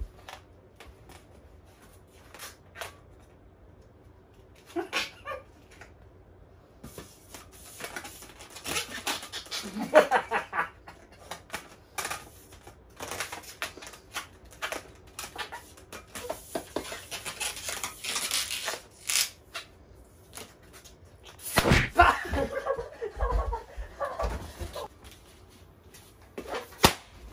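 A long modelling balloon being blown up by mouth in a series of breath puffs, with bursts of laughter and handling noises, including a loud patch about three-quarters of the way through.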